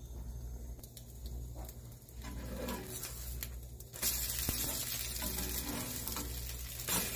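French toast sizzling in a nonstick frying pan, with a slotted plastic spatula scraping and knocking against the pan as the slices are turned. The sizzle jumps louder about four seconds in, as the flipped sides meet the hot pan.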